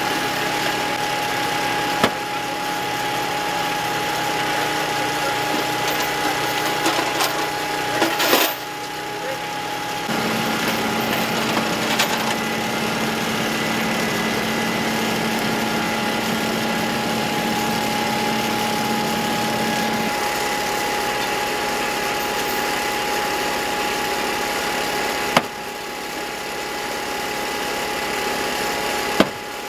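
An engine runs steadily at the extrication scene, a constant drone with a thin high whine over it. A few sharp clicks or snaps cut through it.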